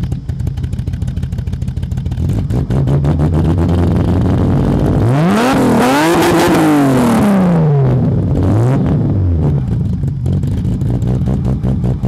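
BMW E30 316i four-cylinder engine heard at its twin-tip exhaust, idling, then revved once about five seconds in: the pitch climbs, peaks and falls back to idle over about three seconds. A short smaller blip follows before it settles back to a steady idle.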